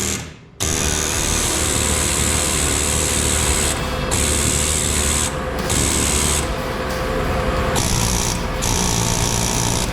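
Pneumatic air hammer driving a punch, hammering in long bursts with short breaks between them. The hammering does not free the part.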